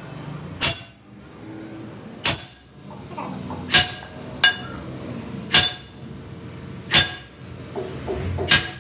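Hammer blows on a steel truck trunnion shaft assembly: six sharp metal-on-metal strikes about a second and a half apart, plus one lighter tap, each leaving a brief high ring.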